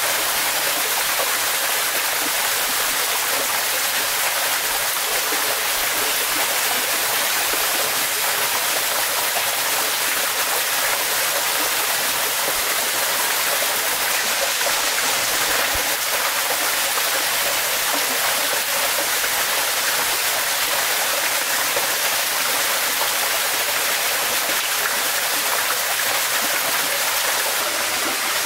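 Steady rush of a stream flowing over rocks, an even hiss that does not change.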